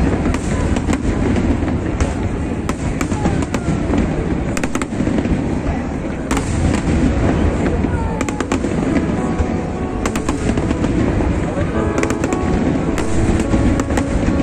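Aerial fireworks bursting in quick succession: many sharp bangs and crackles over a steady low rumble of booms.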